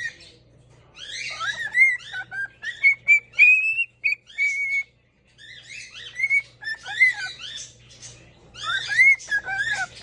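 Pet parrot whistling and chirping in runs of short gliding notes that rise and fall, with a short pause about halfway through. The bird is in its hormonal season, calling for its flock.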